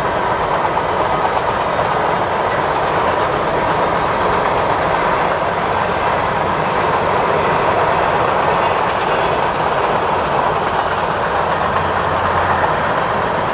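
Canadian Pacific freight train's hopper cars rolling steadily past, steel wheels running on the rails.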